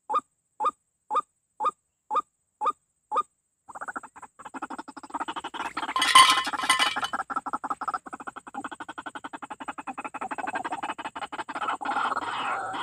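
White-breasted waterhen calls: a run of short, evenly spaced calls about two a second that stops about three seconds in, then fast continuous chattering. About six seconds in comes a loud flurry as a waterhen is caught in the snare, its wings flapping and the hanging milk can rattling.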